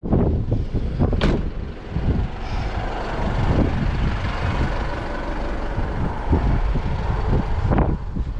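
Car driving slowly along a soft sand track, engine running under a heavy low rumble with repeated knocks and thuds as it bumps over the uneven ground. Sharp knocks come about a second in and near the end. Wind buffets the microphone on the outside of the car.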